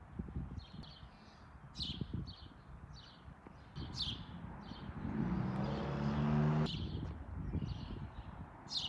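A small bird chirping again and again in short, high notes, over a low rumble. About five seconds in, a steady mechanical hum comes up, the loudest sound here, and cuts off suddenly about two seconds later.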